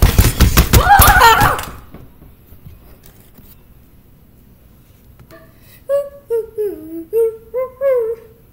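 A loud burst of crackling noise with a wavering high cry inside it, cutting off about two seconds in. From about five seconds in, a high voice makes a string of short wordless squeaks and hums that slide up and down in pitch.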